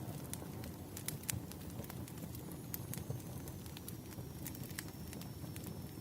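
Wood fire burning, with a steady low rumble and frequent irregular sharp crackles and pops of the burning logs. A faint thin high whistle comes in about halfway through.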